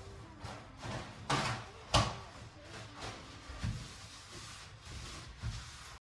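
Handling noises from kitchen items being moved about and set down: a few separate knocks and bumps, the loudest about two seconds in. The sound cuts off abruptly just before the end.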